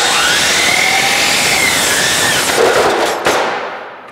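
DeWalt double bevel sliding compound miter saw starting abruptly and cutting fast through a wide board that sits off the fence, so the kerf closes and pinches the blade in a forced kickback. The motor's pitch rises and then sags under load, a harsher patch ends in a sharp crack about three seconds in, and the saw winds down near the end.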